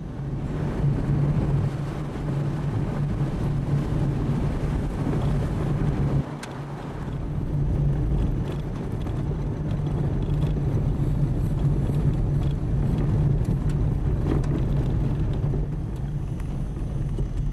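Car driving along a gravel road, heard from inside the cabin: a steady low engine hum with tyre and road noise, dipping briefly about six seconds in.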